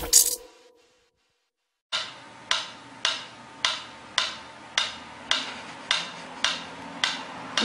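Mechanical metronome ticking steadily, a little under two sharp ticks a second, starting about two seconds in after music cuts off and a short silence.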